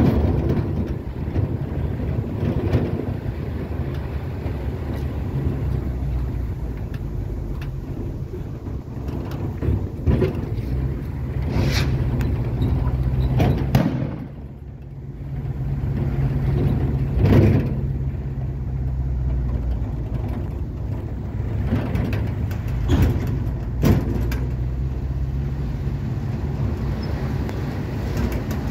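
A vehicle driving slowly over a concrete road, heard from inside the cab: a steady low engine hum and road noise, with a few knocks from bumps along the way.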